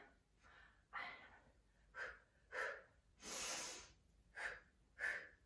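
A woman breathing hard in time with a Pilates spine twist: about six short, sharp breaths, with one longer breath just past the middle.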